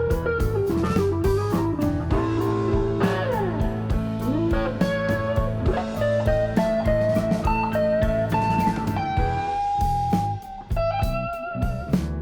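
Background music: an electric guitar melody with bending notes over drums and bass, in a bluesy style.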